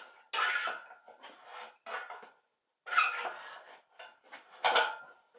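Metal clanking and scraping in several short, irregular bouts, some with a faint ringing tone, from handling the engine stand and hoist hardware while working an engine onto the stand.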